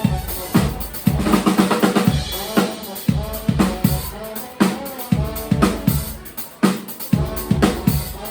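Live band music with a drum kit keeping a steady beat, about two strikes a second, under sustained pitched notes.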